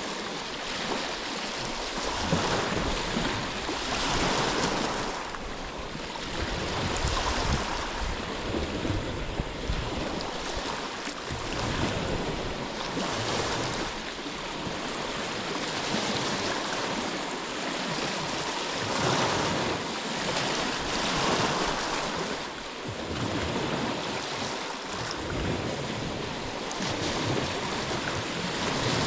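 Ocean waves washing onto the shore, swelling and falling back every few seconds in an even hiss.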